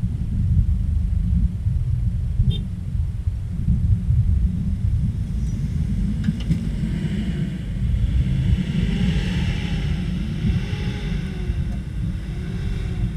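Heavy low rumble throughout. From about halfway in, a vehicle engine revs up and down again and again, working to pull a bogged vehicle through soft sand.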